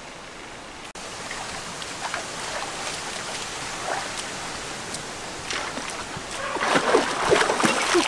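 A shallow rocky stream running, with splashing from feet wading through the water. The splashing grows louder and busier over the last two or three seconds, as someone lunges down into the water.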